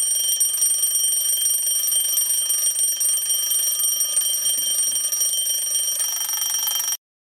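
RHYTHM retro-style bell alarm clock ringing continuously with a high metallic ring, then cutting off suddenly about seven seconds in.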